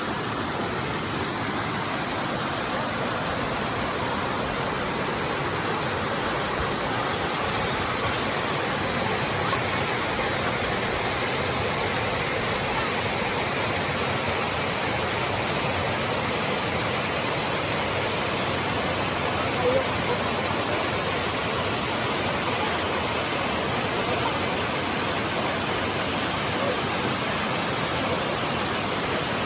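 Creek water pouring over a small waterfall on a rock slab: a steady, even rush of water, with one brief click about twenty seconds in.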